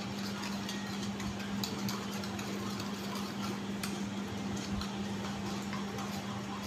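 Metal spoon beating egg batter in a ceramic plate, clicking and scraping against the plate in quick small ticks, over a steady low hum.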